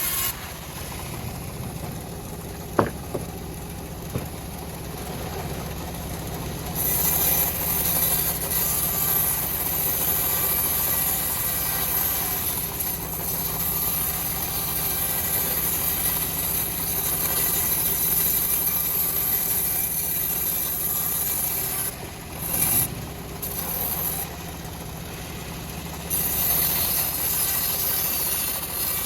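Homemade bandsaw mill running steadily while sawing a teak log, its drive engine droning, with louder stretches as the blade works through the wood and quieter lulls between. A single sharp click about three seconds in.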